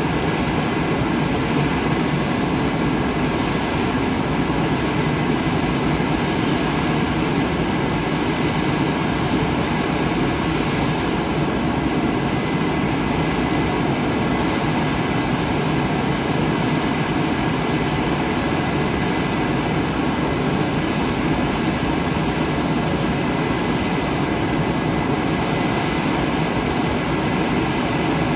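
Jet engines of the Blue Angels' F/A-18 Super Hornets idling on the ramp: a loud, steady roar with a constant whine.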